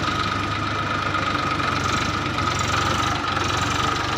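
Massey Ferguson 1035 DI tractor's three-cylinder diesel engine running steadily, with a constant high whine over the engine note.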